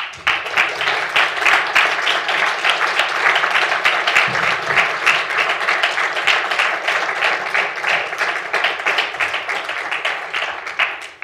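Audience applauding: many hands clapping, starting at once and dying away near the end.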